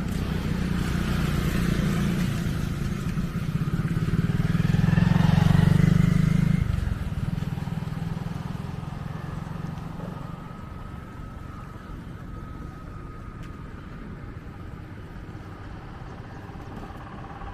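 Small motorboat's engine passing close below, its rumble growing louder to a peak about five or six seconds in, then dropping away sharply and fading to a faint hum.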